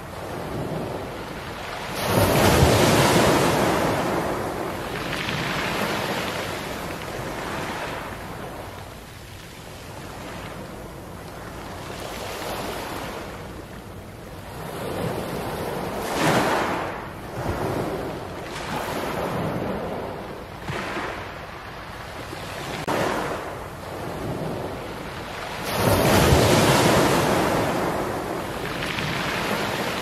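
Small waves washing up a beach of round black pebbles (mongdol), each surge rolling the pebbles with a rattling hiss as the water runs up and draws back. The biggest surges come about two seconds in and again near the end, with smaller ones in between.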